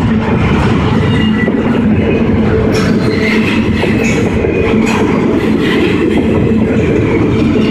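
Double-stack container train rolling past: a steady rumble of wheels on rail, with a few sharp clicks as the wheels cross rail joints.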